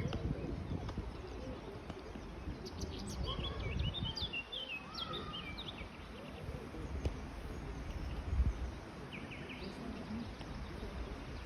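Small birds chirping: a quick run of high calls about three to five seconds in and a short burst near nine seconds, over a low rumbling background noise.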